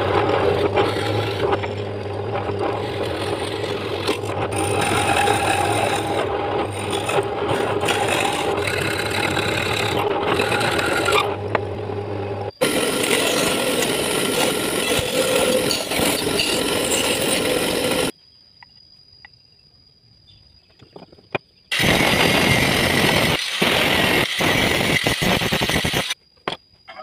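A power drill boring into a block of wood for about twelve seconds over the steady hum of its motor. A saw blade then cuts through wood for about five seconds. After a few quiet seconds, an angle grinder's cutting disc cuts into steel clamped in a vise for about four seconds.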